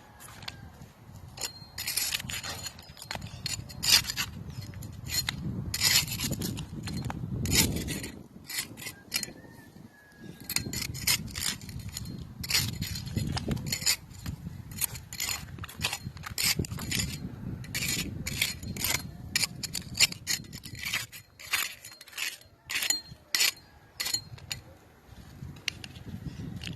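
Hand tool scraping a hard surface in many short, irregular strokes.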